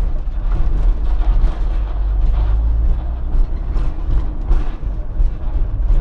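Fiat Fiorino van driving, heard from inside the cabin: a steady low engine and road rumble with an uneven hiss over it.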